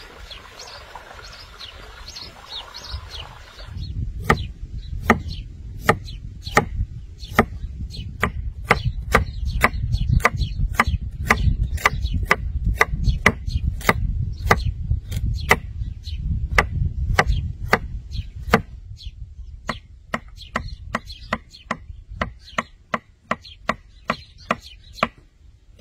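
Knife chopping food on a cutting board in steady strokes, about two a second, growing fainter near the end. Birds chirp in the first few seconds before the chopping starts.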